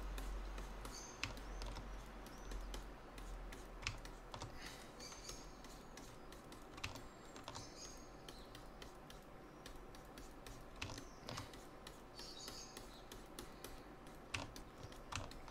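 Faint, irregular clicks and taps of computer input devices, keyboard and graphics-tablet pen, over a low steady hum.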